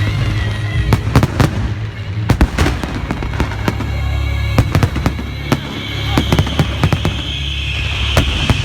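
Fireworks going off in quick succession: many sharp bangs and crackles, close by, over background music.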